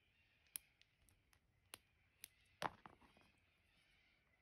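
Faint, sharp metal clicks of a spring bar tool working a watch strap's spring bar out of the lug holes on a steel watch case: about six separate ticks, the loudest about two and a half seconds in, followed by a brief rattle of smaller clicks as the spring bar releases.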